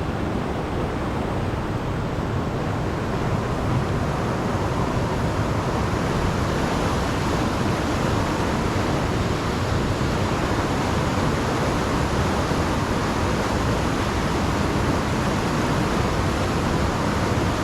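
Steady rushing of high, fast-flowing floodwater through a river spillway.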